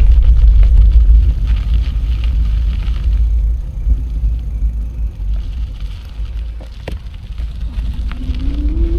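Wind buffeting the microphone of a camera on a moving bicycle: a heavy, uneven low rumble that eases off in the middle and builds again. Scattered small clicks run through it, and a faint rising tone comes in near the end.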